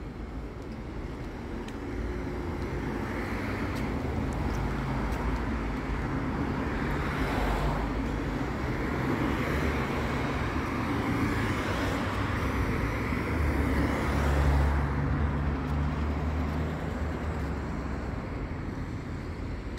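Street traffic: cars driving past, a steady rush of engines and tyres that grows louder after a couple of seconds. A vehicle's engine hum stands out for a few seconds from about two-thirds of the way in.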